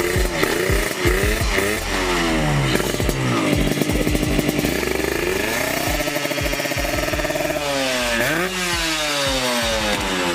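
Two-stroke Kawasaki Ninja 150 drag-bike engine being revved up and down again and again, the pitch falling back and climbing repeatedly, with a deep dip and a sharp climb near the end.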